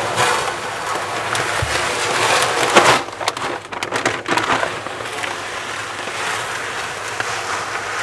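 Coarse Vulcano base substrate being poured into an aquarium: a steady gritty rush of tumbling granules, loudest about three seconds in, then breaking into uneven rattling pours.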